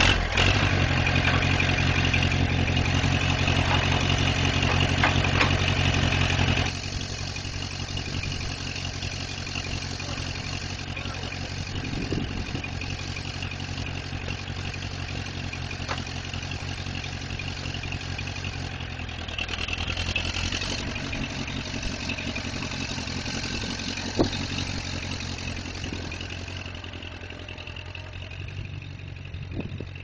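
Allis-Chalmers C tractor's four-cylinder engine catching on the hand crank and running fast for about seven seconds, then dropping to a lower, steady idle. It picks up a little later on, there is one sharp clack, and it fades near the end as the tractor moves off.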